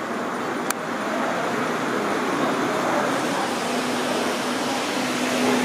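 Steady background noise of a large indoor hall, with a single sharp click about a second in and a faint steady hum coming in during the last two seconds.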